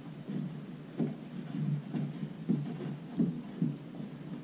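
Handling noise from a rubber gasket and plastic through-hull wiring fitting being worked into a hole in a plastic kayak hull: soft rubbing and a few light knocks.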